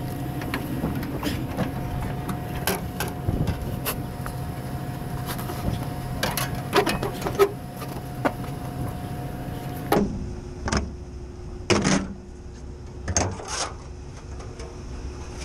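Scattered metal knocks and clanks from hands working a cooling tower's sheet-metal fan shroud and fan blade, over a steady mechanical hum. About ten seconds in, the hum gives way to a fainter one of a different pitch.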